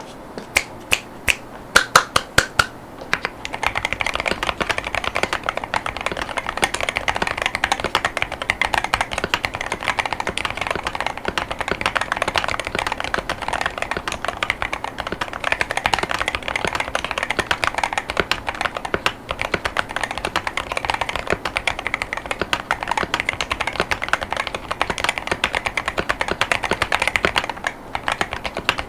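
Wooting 80HE Hall-effect keyboard in a transparent plastic case, with Lekker L60 linear switches and PBT OEM-profile keycaps, being typed on: about ten separate keystrokes over the first three seconds, then fast, steady typing with a brief pause near the end.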